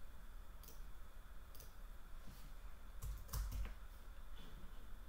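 Scattered computer mouse clicks, with a quick run of keyboard keystrokes about three seconds in as a dimension value is entered.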